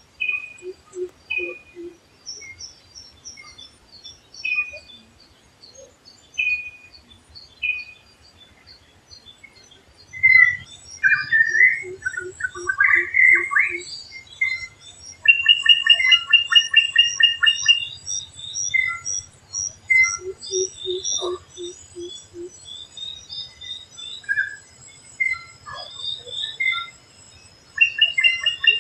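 Several wild birds calling together. There are many short high chirps and whistles, with busy rapid trills about ten seconds in and again near the end. Three times, a low hoot is repeated four or five times in quick succession.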